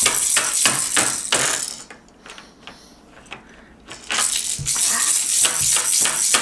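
A baby rattling and clattering a small hard object: fast runs of sharp clicks and knocks, broken by a pause of about two seconds in the middle.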